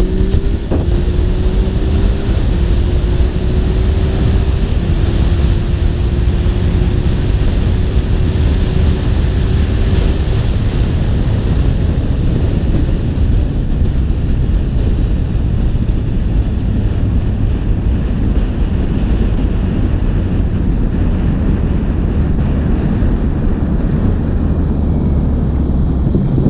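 Yamaha XSR900's inline-three engine pulling under way, its note climbing slowly for about the first ten seconds. Heavy wind buffeting on the microphone and road rush cover it, and after that they are mostly all that is heard.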